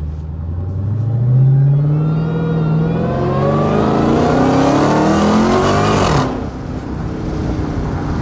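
Supercharged 6.2-litre HEMI V8 of a Dodge Challenger Hellcat with a newly fitted cold air intake, accelerating hard as heard from inside the cabin: the engine note climbs steadily in pitch and loudness for about six seconds, then falls away suddenly and settles lower.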